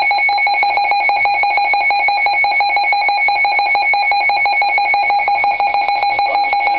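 Weather-radio alert tone signalling a severe weather warning bulletin: a loud, steady electronic tone with a fast, even pulse running through it.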